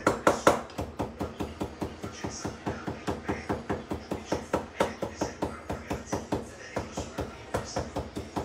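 Knife chopping fresh parsley on a wooden cutting board: fast, even strokes, about five or six a second.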